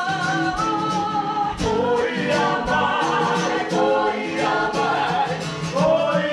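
Group of Māori performers singing a song together in harmony, over a steadily strummed acoustic guitar.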